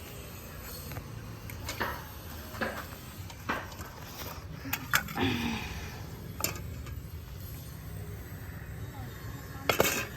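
Potatoes and soil being handled and dug out of a planter by hand: scattered short rustles and light knocks every second or so, over a steady low background rumble. A voice is heard briefly about five seconds in.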